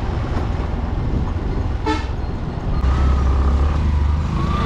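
Riding noise from a scooter on a dusty road: steady engine and wind rumble. A single short horn toot sounds about two seconds in. The rumble gets louder a little before the three-second mark.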